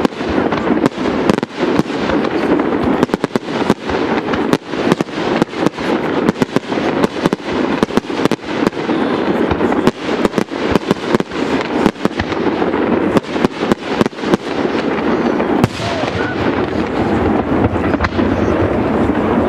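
Aerial fireworks display: a rapid, dense barrage of shell bursts and sharp reports, thinning out after about thirteen seconds with one more strong bang a couple of seconds later, over a steady din.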